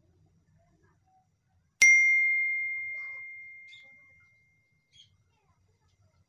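A single notification-bell ding, the sound effect of a subscribe-button animation: one sharp strike about two seconds in that rings on as a clear high tone and fades out over about three seconds.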